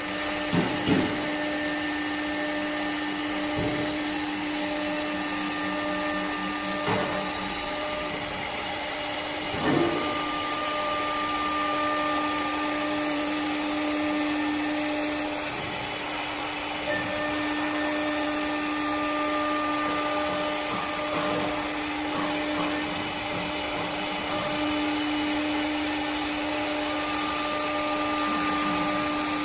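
CNC wood lathe's electric router spindle milling spiral grooves into a turned wooden spindle: a steady high whine over the rushing noise of the bit cutting wood, with a few brief knocks.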